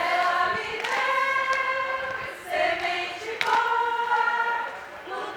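A women's group singing a ciranda together in unison, mostly unaccompanied, holding long sung notes. A few sharp hits sound among the singing, the clearest about three and a half seconds in.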